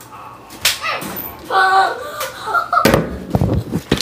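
Handling noise of a phone being grabbed and moved: scattered knocks and scrapes, the loudest a quick cluster of sharp hits about three seconds in.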